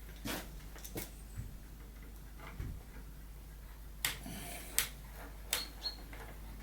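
Irregular small metal clicks and taps, about eight over a few seconds: screws and a screwdriver knocking against the metal lock unit as it is screwed back into the door.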